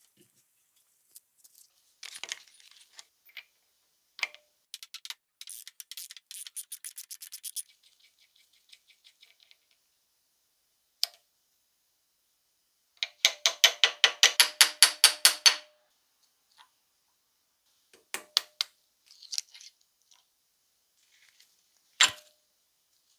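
Ratchet clicking as a bearing puller is tightened to draw a bearing off a hammer drill gear, with scattered small metal clicks and taps. There are two runs of fast, even ratchet clicks: a quieter one a few seconds in and a louder one of about six clicks a second past the middle. A single sharp metal clack comes near the end.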